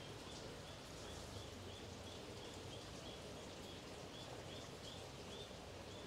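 Faint outdoor ambience: a steady low hiss with a short, high chirp from a small creature repeating about two or three times a second.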